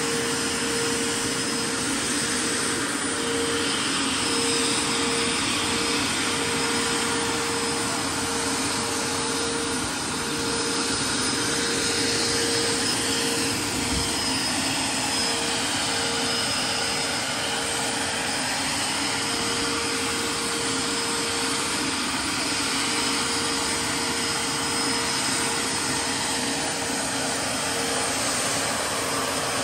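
Scale RC MD600N helicopter running and flying: the model turbine engine and the electric ducted fan that blows through the tail boom make a steady jet-like rushing whine with a constant mid-pitched tone.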